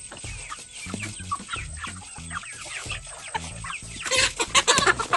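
A flock of hens clucking around the coop door. The clucking grows louder and busier about four seconds in.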